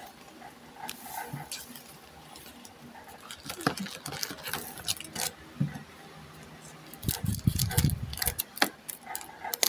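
Trading cards and foil booster packs being handled: scattered crinkles, rustles and light clicks as the cards are shuffled and a new pack is pulled from a cardboard display box, with a louder stretch of handling about seven seconds in.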